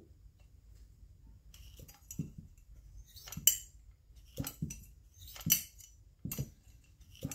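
A string of sharp clicks and clinks, about one a second from roughly two seconds in, from hard plastic and metal chainsaw parts and tools being handled.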